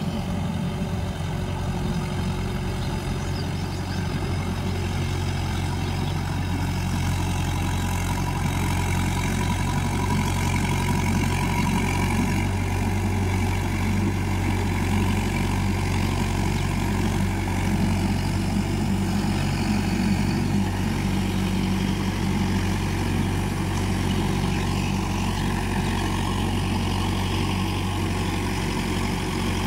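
Mahindra Yuvo 585 tractor's four-cylinder diesel engine running steadily under load while it drives a rear rotavator, puddling a flooded paddy field.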